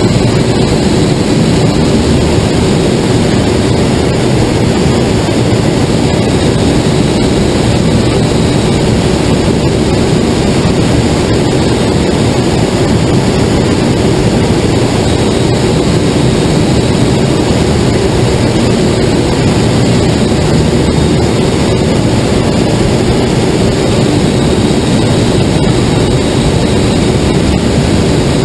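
Steady, loud rush of air in a glider's cockpit while it climbs on aerotow.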